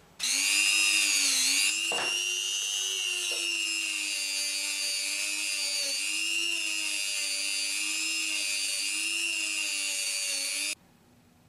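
Handheld rotary tool running at high speed against the guitar's frets: a steady high whine that wavers a little in pitch, then cuts off suddenly near the end.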